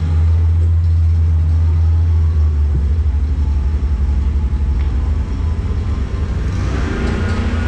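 Power wheelchair driving along a hard floor: a loud, steady low rumble from its drive motors and wheels, picked up by a camera mounted on the chair. The rumble turns more uneven about three seconds in.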